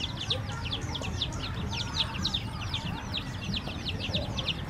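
A brood of newly hatched chicks and ducklings peeping nonstop, many short, high, downward-sliding peeps overlapping, several a second.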